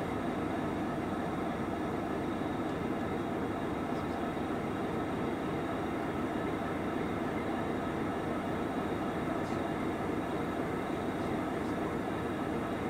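Idling diesel-electric locomotives giving a steady, even drone while they are refuelled.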